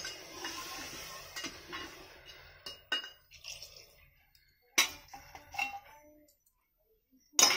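Metal cooking utensils clinking against a metal pot of curry as water is added to it. A hiss fades over the first two seconds, light clinks are scattered through, a sharp clink comes about five seconds in and a loud clank near the end.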